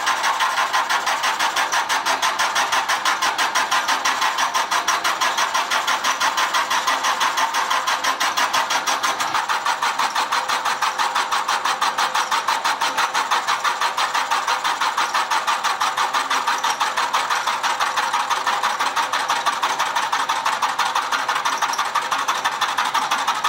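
Milling machine cutting metal, taking about a one-millimetre cut, with a steady rapid pulsing chatter from the cutter as it works along the part.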